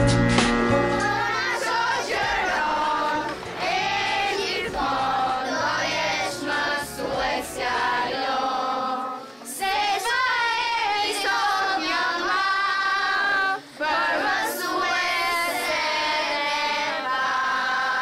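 A group of children singing a song together, with two short breaks between lines. Instrumental music ends in the first second.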